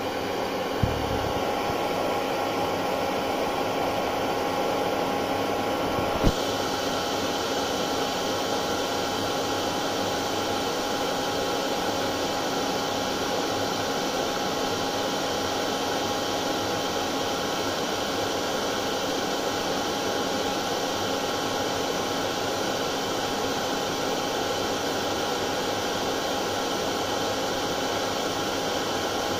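Hair dryer running steadily: an even blowing rush with a constant motor hum. Two brief clicks come about one and six seconds in, and after the second the hiss turns a little brighter.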